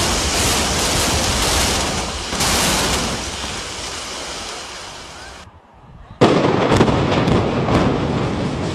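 Building implosion: a dense crackling crash of collapsing concrete that dies away over a few seconds. After a brief gap, a second tower block's collapse comes in suddenly and loud, with sharp cracks through it.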